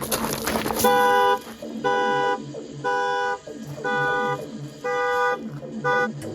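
A short noisy burst, then a horn sounding in six even blasts about once a second, each about half a second long, in the pulsing pattern of a car alarm.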